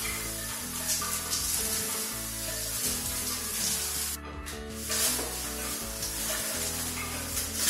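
Plastic dust sheeting crinkling and rustling as it is pulled down and bunched up, over background music.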